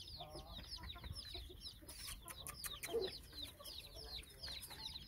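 Aseel chicks peeping: many short, high, downward-sliding cheeps overlapping without a break. A run of sharp clicks comes about two to three seconds in, with a single lower call about three seconds in.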